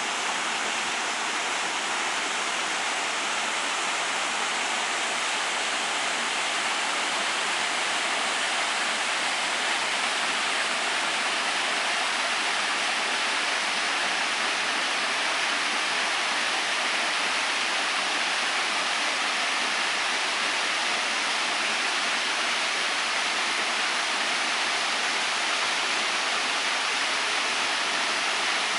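Waterfall pouring steadily: a continuous hissing rush of falling water, mostly high in pitch with little deep rumble.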